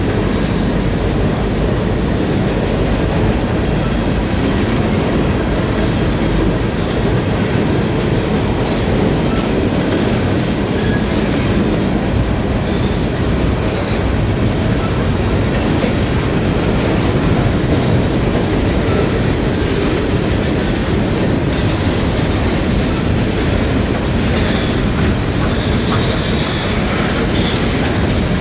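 Freight train cars rolling slowly past at close range: a steady rumble of steel wheels on rail, with frequent clicks of wheels over the rail joints.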